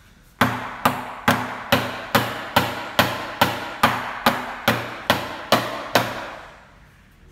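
A steady beat of sharp percussive knocks, a little over two a second, each with a short ringing tail, in the background music track. The knocks start about half a second in and stop about a second before the end.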